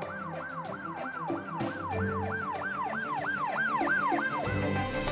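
Electronic toy police siren wailing in quick rising-and-falling sweeps, about three a second, stopping shortly before the end.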